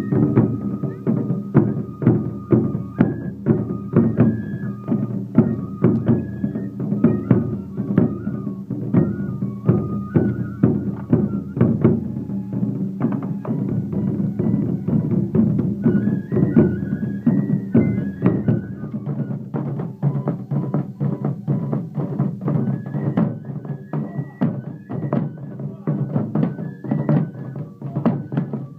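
Music: a fast, even run of drum strokes under a melody of held notes that step up and down.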